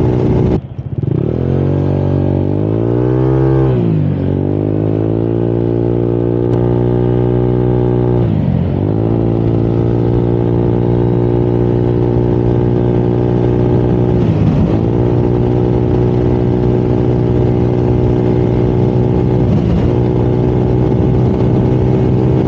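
Honda Click 125i scooter's single-cylinder engine and CVT pulling hard at full throttle: a steady engine drone that climbs in pitch over the first few seconds, then holds high, dipping briefly and recovering three times. This is a stress run to check that the retightened crankshaft nut holds.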